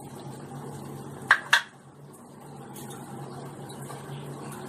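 A metal spatula knocking twice against a metal kadai about a second and a half in, over a steady low hum.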